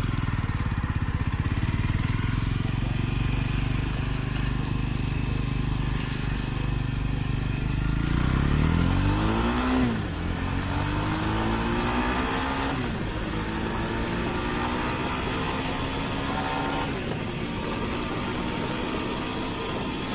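Jawa 42 2.1 motorcycle's single-cylinder engine pulling hard under acceleration, heard from the rider's seat. In the second half its pitch climbs and then drops sharply three times as it is shifted up through the gears, with wind rush growing as speed builds.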